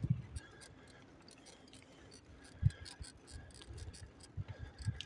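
Microphone noise from a handheld camera carried on foot: irregular low thumps, the strongest about halfway through, with faint scattered clicks.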